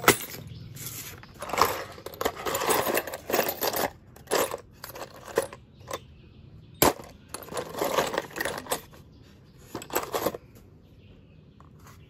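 Steel bolts, eye bolts and screws clinking and rattling against each other in a disposable tray as hands pick through them, in several short bursts with a few single sharp clicks.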